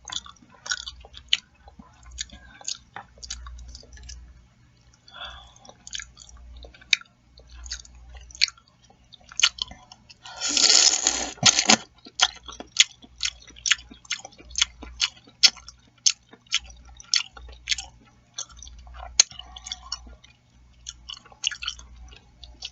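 Close-miked chewing and wet lip-smacking of chicken noodle soup, with many sharp mouth clicks, and one long slurp of soup or noodles about ten seconds in, the loudest sound in the stretch.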